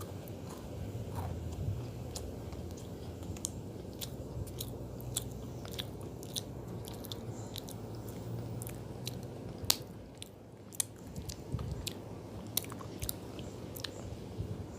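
Cookie being chewed close to the microphone: irregular crisp crunches and clicks, with one louder snap near the middle.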